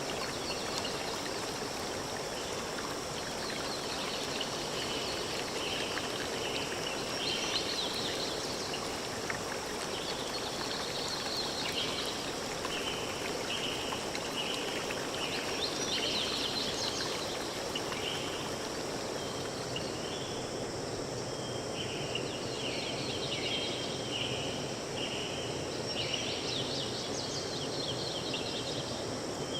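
Steady rush of running water, like a stream, with short high chirps repeated over it in quick runs.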